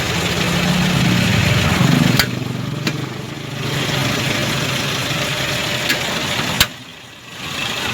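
Car engine idling with a steady hum, cut by a sharp click about two seconds in, after which a rougher, lower noise runs on with a few more clicks and a brief quieter dip near the end.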